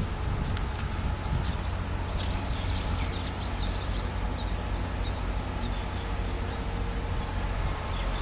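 Small birds chirping in short, scattered calls over a steady low rumble, mostly in the first half.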